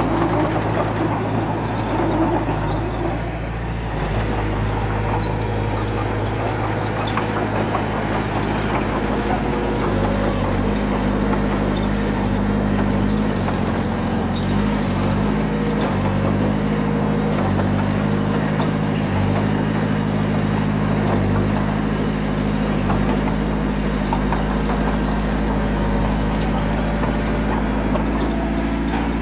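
Small bulldozer's diesel engine running steadily while working. Its pitch steps up about a third of the way in and dips briefly around the middle as the load changes.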